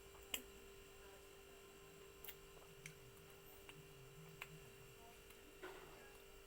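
Near silence: a steady electrical hum, broken by a few faint, brief clicks.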